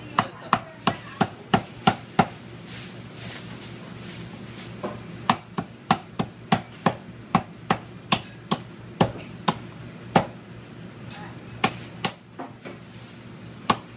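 Meat cleaver chopping ribs into pieces on a wooden butcher block. Sharp chops come about three a second, stop for a couple of seconds, then a longer run follows, with a few more chops near the end.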